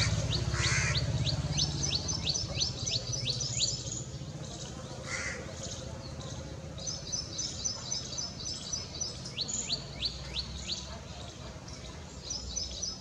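Wild songbird singing repeated phrases: a run of quick downward-sweeping whistled notes and a fast series of high paired notes, given three or four times. A couple of lower, coarser bird calls are mixed in, over a low rumble that is loudest in the first two seconds and then fades.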